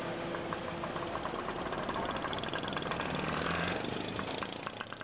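Car engine running close by, with a fast, regular ticking; the sound fades near the end.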